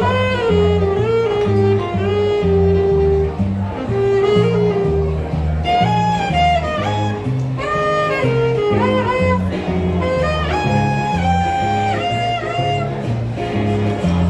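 Small jazz band playing: a plucked double bass stepping from note to note under a violin melody with sliding, wavering notes, and some guitar.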